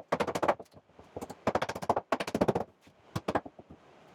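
Rapid, machine-like hammering in short bursts, about fifteen to twenty blows a second, from a power hammering tool breaking up an old wooden floor and its nails.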